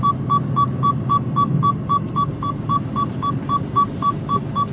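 Seatbelt warning in a Mercedes Actros cab beeping rapidly and steadily at about four short beeps a second, sounding because the driver's seatbelt is unfastened, over the low rumble of the lorry running.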